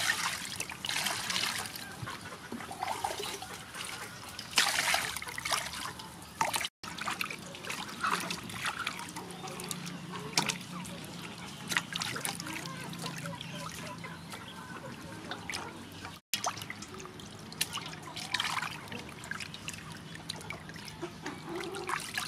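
Water splashing and trickling in a stainless steel bowl as a gutted fish is washed by hand, lifted and dripped, in irregular splashes with a few louder ones. Two brief drop-outs break the sound.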